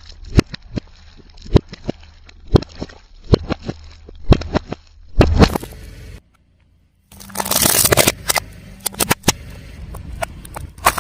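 A car tyre rolling over and crushing crunchy objects: a run of separate sharp cracks and snaps, a short silent break about six seconds in, then a thick crackling.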